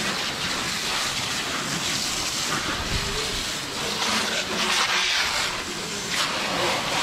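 Water jetting from a Turbo Jet garden-hose spray wand in a wide fan pattern, a steady hiss and spatter as the spray hits a car's engine bay and front end. The sound swells and dips as the spray is swept across different surfaces.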